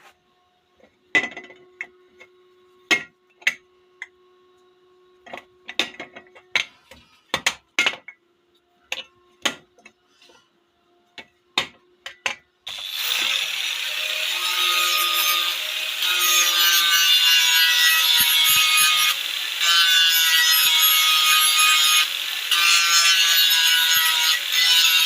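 Scattered metal clanks and knocks of parts being handled, then about halfway through a power tool starts grinding or cutting metal, a loud continuous rasp with a whine whose pitch wavers under load.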